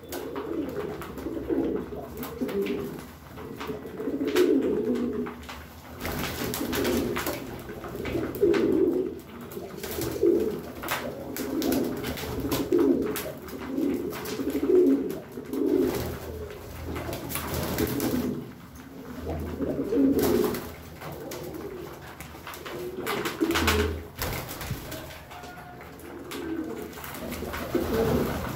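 A flock of domestic pigeons cooing over one another in repeated low warbling calls, with frequent sharp clicks of beaks pecking grain from a feed tray.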